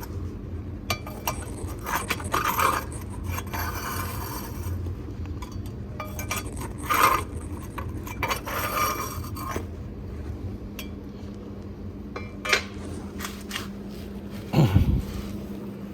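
A tool scraping through wood ash in a homemade fireplace: a series of separate scrapes with scattered light clinks and knocks, and a short sound falling in pitch near the end.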